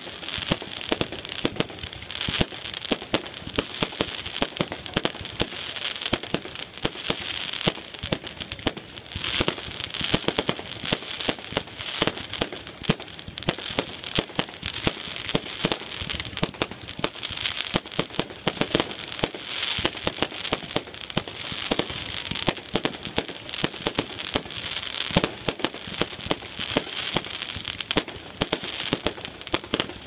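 Fireworks display finale: a dense, unbroken barrage of aerial shells bursting, many bangs a second.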